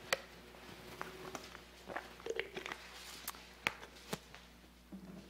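Bible pages being turned and handled to find a passage, heard as scattered soft rustles and a few sharper clicks and taps in a quiet room.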